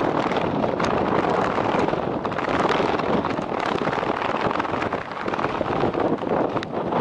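Strong wind blowing on the camera's microphone: a dense, steady rush of noise that dips briefly about five seconds in.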